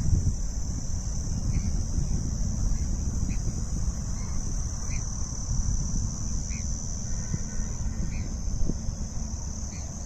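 A steady, high-pitched insect chorus over a low rumble of wind on the microphone, with scattered short bird chirps.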